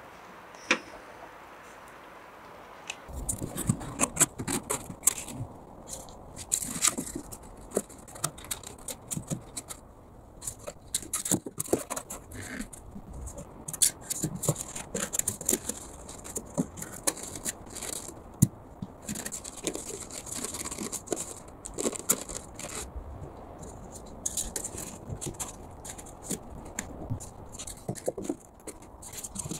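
From about three seconds in, rigid foam insulation boards are handled and laid between wooden floor joists: a steady run of irregular scraping, rubbing and light knocks as the boards slide against each other and the timber.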